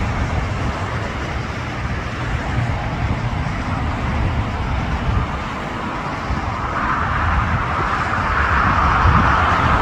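Steady low rumble of road traffic and outdoor noise, with a rushing roar that swells from about seven seconds in and keeps growing.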